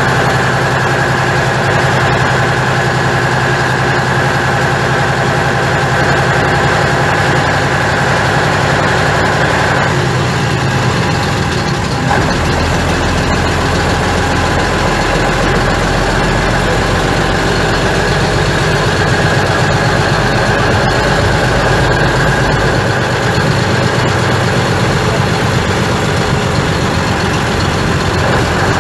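Skoda 706RT straight-six diesel of a 1977 Jelcz 272MEX bus running as the bus drives, heard from inside the bus. The engine note drops and shifts about ten seconds in and again about twelve seconds in, and changes once more about two-thirds of the way through.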